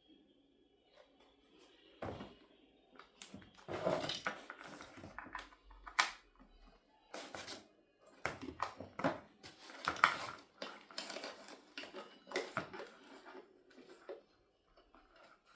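Handling noises: irregular knocks, clicks and rustles of hard objects being picked up and set down, starting about two seconds in.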